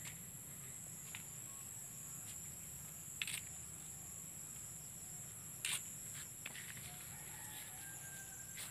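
Steady, high-pitched chorus of insects trilling without a break, with a couple of short knocks about three and six seconds in.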